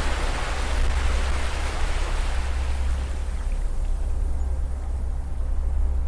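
Ocean surf: a wave's wash of hiss fading away over the first few seconds as it recedes, over a steady low rumble.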